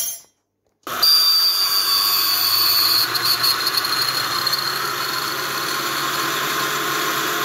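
Countertop blender grinding a dry mix of whole spice seeds (caraway, fennel, anise). The motor starts about a second in and then runs as a loud, steady whine with a high tone over the rattle of the seeds.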